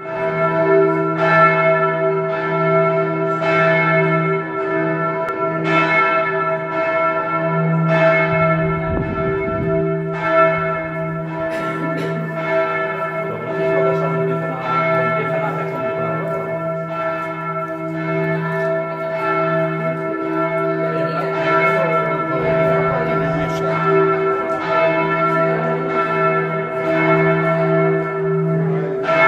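Church bells ringing on and on, a fresh strike about once a second over a steady, lingering ring of several tones.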